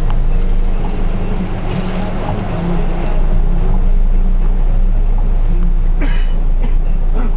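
Minibus heard from inside the cabin in heavy rain: a steady low engine and road rumble under a wash of water noise from rain and wet tyres. A brief louder hiss comes about six seconds in.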